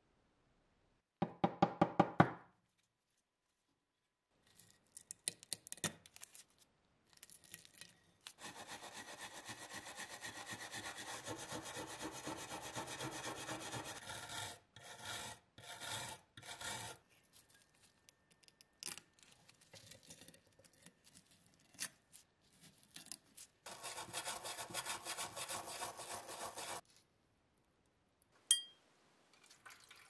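Brass wire brush scrubbing rust and caked dirt off the metal body of a machine-gun table lighter in fast, even strokes. There is a long stretch of brushing and a shorter one later, with a short burst of rapid clicking about a second in.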